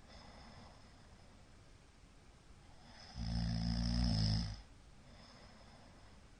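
A man snoring in his sleep: a single low, buzzing snore about three seconds in, lasting about a second and a half.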